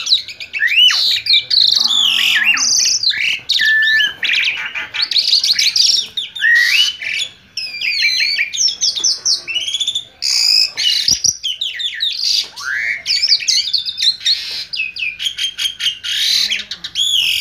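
Pied starling (jalak suren) singing a loud, varied song of rising and falling whistles mixed with rapid chattering notes, nearly without pause.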